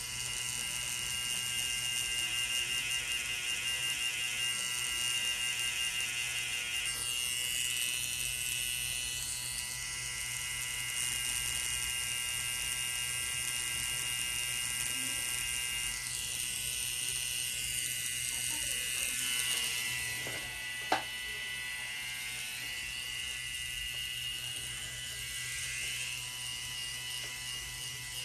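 Tattoo machine buzzing steadily as it works on the skin, its pitch shifting a little now and then. A single sharp click comes about three quarters of the way through.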